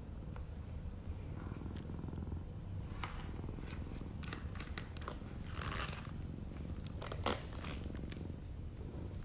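A domestic cat on catnip purring steadily. Scattered small rustles and clicks sound over the purr, with a sharper click about seven seconds in.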